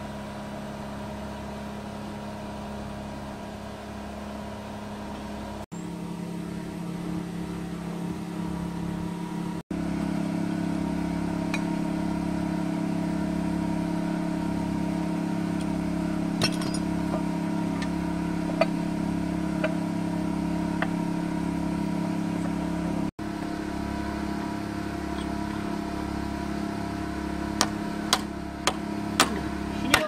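Concrete pump truck's diesel engine running steadily, with a regular low pulsing underneath. A few sharp clicks come near the end.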